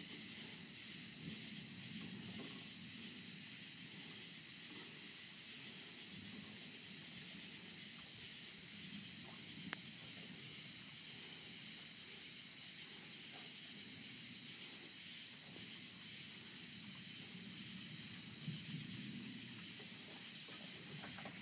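Steady chorus of night insects, a continuous high-pitched trill, with a faint low rumble underneath and a few soft clicks.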